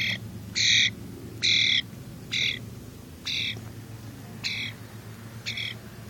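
A young hand-reared wild bird calling repeatedly, one harsh, squawky call about every second, seven in all, the later ones a little shorter and fainter.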